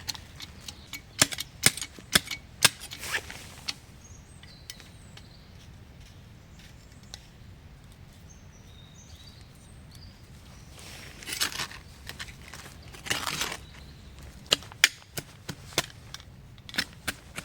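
Clusters of sharp cracks and snaps, with a couple of longer rustling, crunching bursts in the middle and a faint low rumble underneath.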